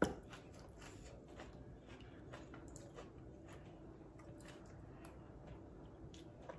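A metal spoon knocks sharply against a plastic bowl of noodle soup at the start, then scattered faint clicks and mouth sounds of eating, over a faint steady hum.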